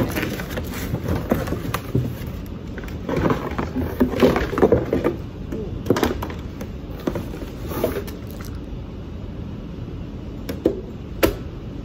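Household objects being handled, moved and set down: irregular clattering and knocks that ease off past the middle, then two sharp knocks near the end.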